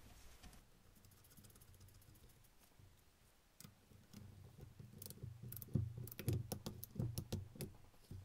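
Ratchet wrench clicking in short, irregular runs as a new bolt on an aluminium steering knuckle is tightened, after a few seconds of faint handling noise.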